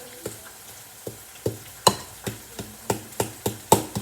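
Arepa dough being mixed in a bowl, the utensil knocking against it about three times a second, the knocks growing louder toward the end.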